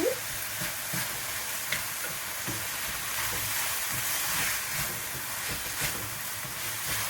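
Sauce sizzling steadily in a pot on the stove after blended onion and hot pepper are mixed in, with a few light clicks.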